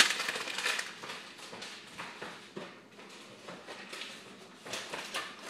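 Scattered light knocks, taps and rustles of kitchen items being handled, loudest in the first second and then fainter.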